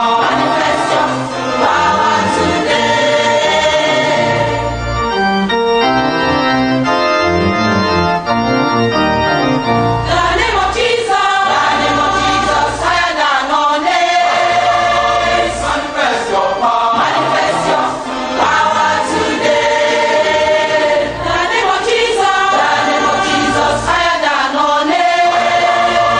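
A choir singing gospel music over organ accompaniment.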